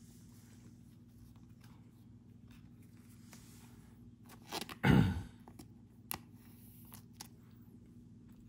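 Trading cards and card sleeves being handled on a table: a few soft clicks and scrapes, with one louder knock about five seconds in, over a low steady hum.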